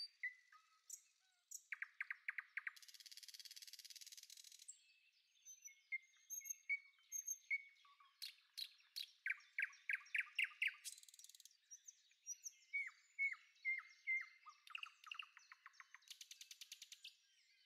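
Birds chirping in the background, with several rapid trilling phrases and short down-slurred calls.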